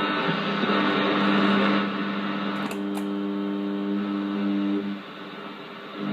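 Blaupunkt Frankfurt car radio receiving a distant AM broadcast: static hiss with steady humming tones, cut off above the treble. Two sharp clicks come near the middle, after which the hiss thins and the tones carry on.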